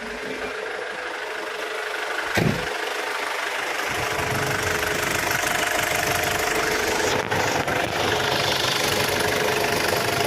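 2008 Ford Everest's diesel engine idling steadily after starting normally on a freshly charged battery. A single sharp knock comes about two and a half seconds in, and the engine gets louder from about four seconds on.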